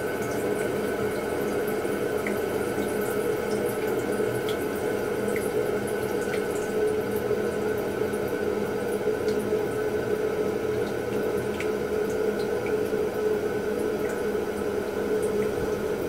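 Toilet cistern refilling after a flush: water running steadily through the fill valve with a steady hum-like tone in the rush and small scattered drips.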